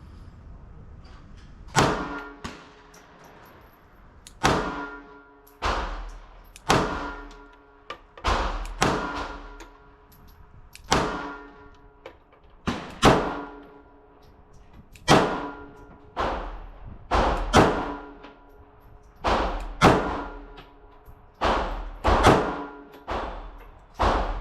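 A string of .380 ACP pistol shots from a Smith & Wesson Bodyguard 2.0, fired one at a time with uneven gaps of roughly half a second to two seconds. Each shot is a sharp crack with a ringing tail, and the ammunition is Fort Scott TUI 95-grain solid-copper rounds.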